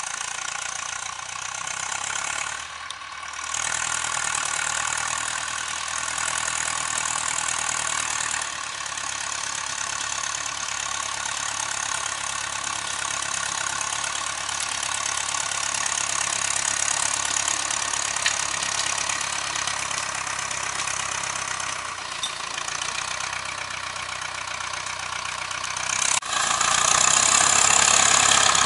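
Ursus C-360 tractor's four-cylinder diesel engine running steadily while the tractor pulls a trailer loaded with firewood. The sound dips briefly about three seconds in and steps up sharply louder near the end.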